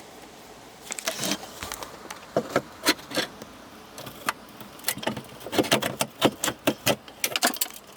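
Needle-nose pliers clicking and scraping against an old plastic dash retaining clip while working it out of its hole: a run of sharp, irregular clicks that come thicker and faster in the second half.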